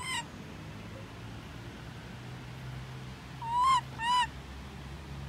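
Baby long-tailed macaque crying with short, high, arched calls that rise and fall in pitch: one at the very start, then two louder ones in quick succession about three and a half seconds in. These are its distress cries when left without its mother.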